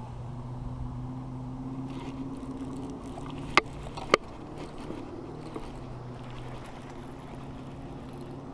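A steady low mechanical hum runs throughout. About three and a half seconds in come two sharp clicks half a second apart, as hands work a baitcasting reel right by the microphone.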